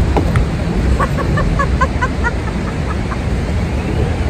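Steady low wind and water noise on an open boat, with a quick run of short high chirps about a second in.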